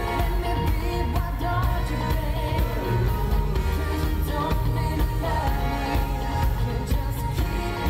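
Live pop music: a male vocal harmony group singing together over band backing with a steady beat.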